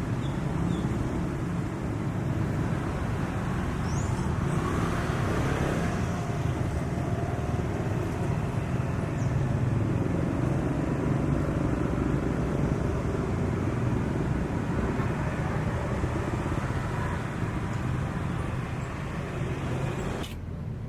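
An engine running steadily under a wash of outdoor noise, cutting off abruptly near the end.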